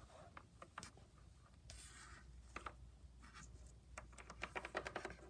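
Faint scratching and tapping from a small plastic toy figure being moved by hand over a hard floor, with a quick run of light taps near the end.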